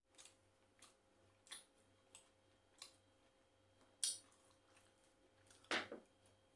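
Faint, irregular clicks and smacks of eating by hand: khubz flatbread torn and dipped in chicken curry, and mouthfuls chewed. Two louder smacks come about four seconds in and near the end.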